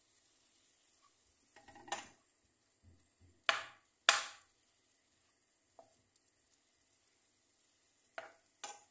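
Spatula scraping and stirring crumbly food in a nonstick frying pan. There are a handful of short scrapes with pauses between: one about two seconds in, two close together around three and a half to four seconds (the loudest), and two more near the end.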